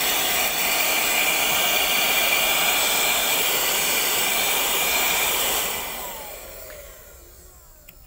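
Piranha PVC 4005 handheld car vacuum, powered from the cigarette-lighter socket, running with a steady whirring whine while it sucks debris from the floor carpet. About five and a half seconds in it is switched off, and the motor winds down with a falling whine.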